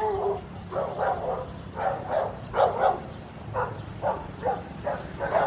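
A dog barking repeatedly, about ten short barks at an uneven pace, over the steady low rumble of a Boeing 737-800's engines idling.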